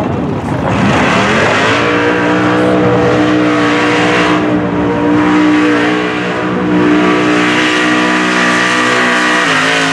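Naturally aspirated LS V8 of a Chevy mud truck (iron-block 6.0 stroked to 402) revving up over the first two seconds, then held at high, steady revs at full throttle as the big tires spin through mud and water, with a rushing hiss of spray. The engine note drops briefly near the end.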